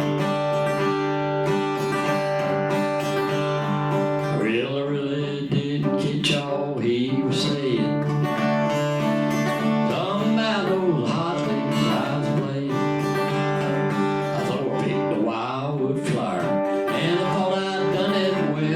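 Live acoustic guitar music, a picked country tune, with a wavering melody line coming in about four seconds in.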